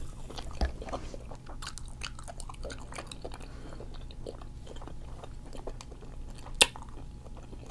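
Close-miked chewing and biting of seafood-boil food, a run of small wet mouth clicks with a sharper bite click about six and a half seconds in.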